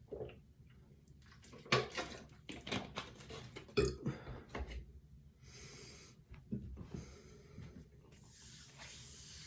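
A person burping on a very full stomach after overeating: a run of burps, the loudest about two and four seconds in, then a few noisy breaths.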